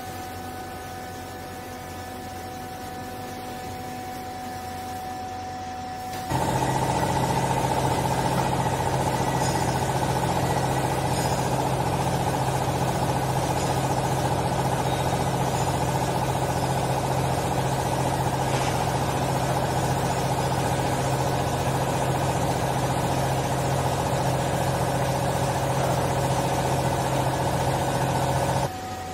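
Vertical hydraulic clothes baler's pump motor running steadily. About six seconds in it jumps sharply louder into a heavy, steady hum as the ram presses down on the load of used clothes, then drops back to the quieter hum just before the end.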